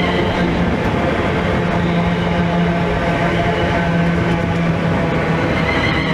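Electric multiple-unit passenger train passing close by at speed: a loud, steady rush of wheels on rails with a low hum running through it.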